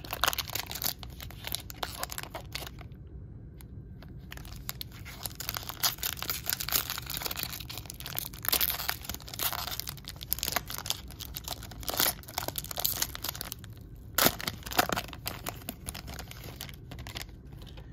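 Foil wrapper of a 2012 Bowman Draft jumbo baseball card pack being torn open and crinkled by hand, in irregular crackles and rustles, with the sharpest crackles near the end.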